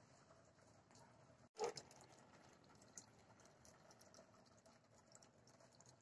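Near silence: faint room tone with scattered light ticks, broken about one and a half seconds in by a brief dropout and a short, sharper sound.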